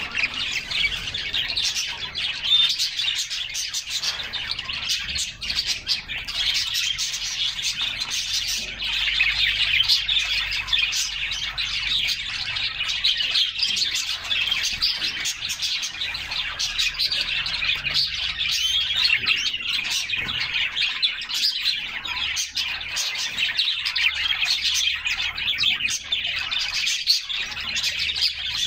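A group of canaries singing and chirping together, many rapid overlapping trills without a break.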